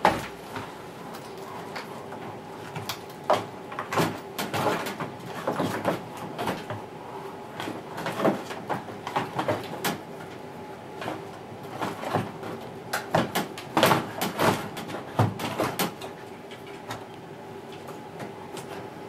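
Irregular knocks, scrapes and clunks of a washing machine's plastic outer tub and drum being worked loose and pulled forwards against the metal cabinet and hoses, over a faint steady hum.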